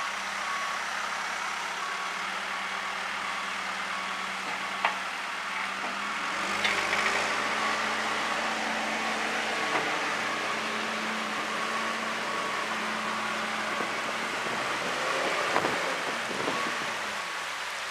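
Diesel engine of a John Deere 310SG backhoe loader running and working as the machine moves through floodwater, picking up about six seconds in, with its backup alarm beeping at even intervals. Behind it is a steady hiss of water rushing across the ground, and there are a few sharp knocks.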